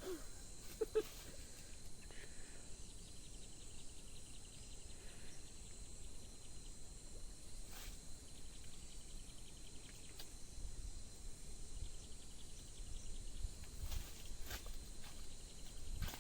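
Insects buzzing steadily at a high pitch, with stretches of rapid pulsed chirping and a few sharp clicks.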